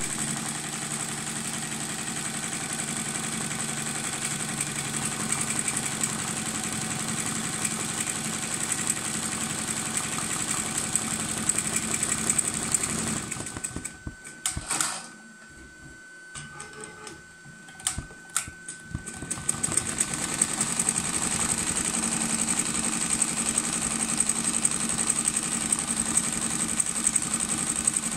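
Tajima Neo multi-needle embroidery machine stitching steadily at speed. About halfway it stops for some six seconds, broken by a few sharp clicks, then starts stitching again.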